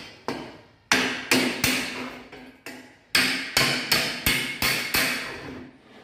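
Hammer blows on a cut length of perforated steel cable tray as it is knocked into its 90-degree bend. About a dozen sharp metallic strikes come at two to three a second, each with a brief ringing tail, with a short pause near the middle.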